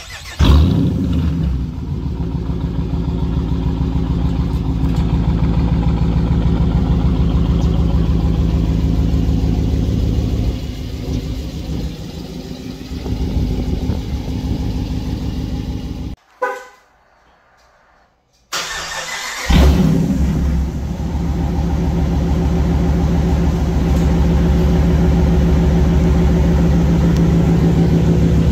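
2022 Dodge Challenger R/T's 5.7-litre HEMI V8, with Dynomax Race Bullet resonators in place of the stock mufflers and the resonators deleted, remote-started warm: it fires with a loud flare about half a second in and settles to a steady idle. After about sixteen seconds the sound breaks off for a couple of seconds, then the engine is started again with another flare and idles on.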